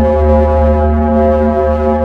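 Planetary radio emissions converted into sound: a steady, deep droning tone with a strong low hum and many overtones, unchanging in pitch.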